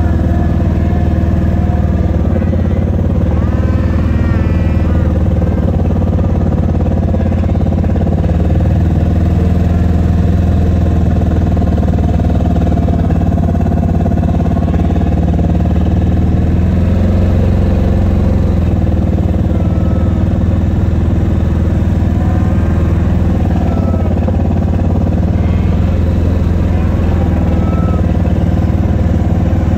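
Side-by-side utility vehicle's engine running steadily at low speed, heard from on board.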